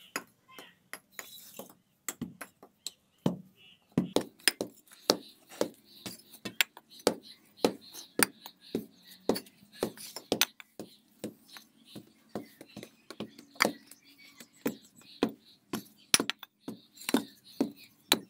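Repeated sharp knocks and clinks at an uneven pace, a few each second: a long-handled iron hand rammer pounding the soil of a foundation trench to compact it. A faint steady low hum runs underneath.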